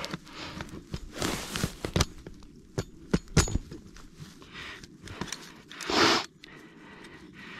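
Dry grass rustling and crackling under hands working a steel trap and chain off a beaver's head, with a few sharp metal clicks about two and three seconds in. A short, louder rustling burst comes about six seconds in.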